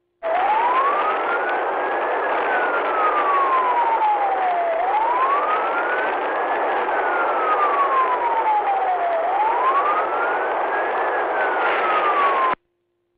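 Police car siren in a slow wail, rising and falling about every four and a half seconds, over steady road noise at highway speed during a pursuit. The sound cuts out abruptly near the end.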